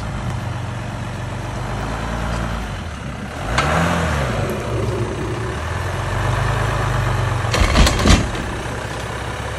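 Jeep Wrangler EcoDiesel's 3.0-litre V6 turbodiesel running at low crawling speed. The revs rise and fall once about four seconds in, and a few sharp knocks come near the end.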